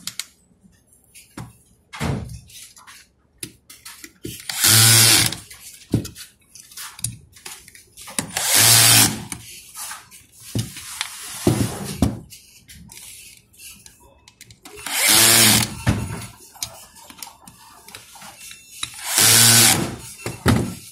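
Cordless drill-driver running in four short bursts of about a second each, driving the bolts that fasten an electric motor and pump head to a mounting bracket. Small clicks of tools and parts come between the bursts.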